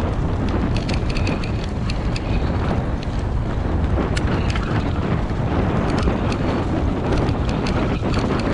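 Wind rushing over the microphone of a moving bike, with its tyres rolling over a dirt trail covered in fallen leaves. Many light clicks and rattles are scattered through it.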